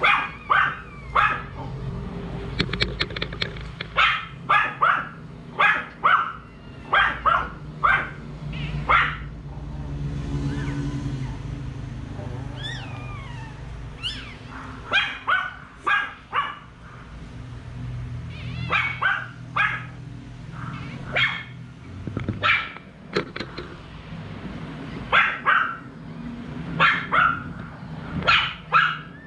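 A dog barking over and over in short runs of two or three barks, with a pause of a few seconds partway through.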